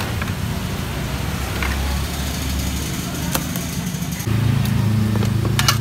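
Traffic engine noise: a motor vehicle engine running, joined by a louder, steadier engine hum about four seconds in. A few sharp metal clinks of utensils on pots near the end.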